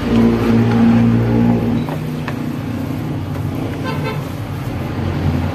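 A spatula scraping and knocking against a metal wok as thick sticky rice is stirred, a few sharp clicks. Under it runs a steady low drone with a pitched hum of several tones, loudest in the first two seconds.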